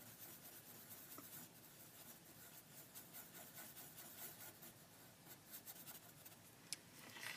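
Black Sharpie permanent marker scribbling back and forth on paper, a faint steady scratching as a small area is coloured in solid.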